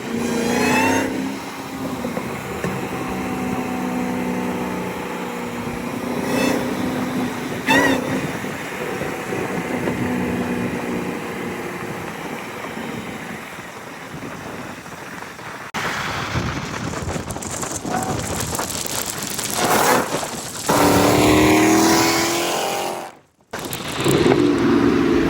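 Chrysler 300's supercharged Hellcat V8 running and revving as the car drives, its pitch rising and falling. The sound changes abruptly about two-thirds of the way in and drops out briefly near the end.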